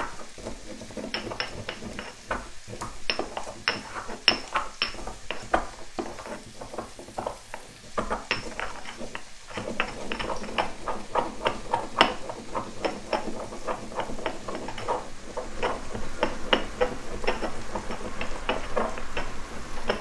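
Pimento (allspice) berries being crushed with a stone pestle in a stone mortar: an irregular run of sharp taps and grinding knocks, stone on stone, at times several a second.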